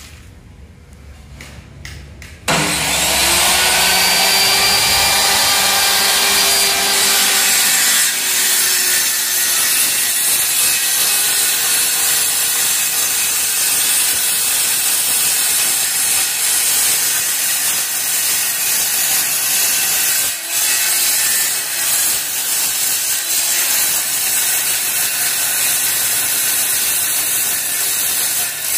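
Handheld electric circular saw switched on about two and a half seconds in, its motor whining up to speed, then running loud as the blade rips along the edge of a wooden window sash. The sound dips briefly about two-thirds of the way through.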